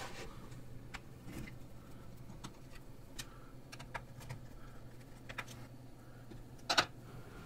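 Small screwdriver working the fan screws on a Dell Precision M4700 laptop's open underside: scattered faint clicks and taps of metal on plastic, with a louder double click near the end. A faint steady low hum runs underneath.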